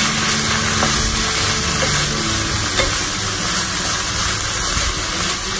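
Wooden spatula stirring shredded dried squid in a nonstick frying pan, the chili seasoning sauce sizzling steadily in the hot pan.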